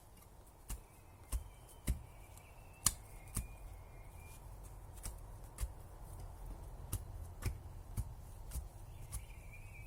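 A series of sharp knocks or cracks, about one or two a second, with a faint wavering high tone at the start and again near the end.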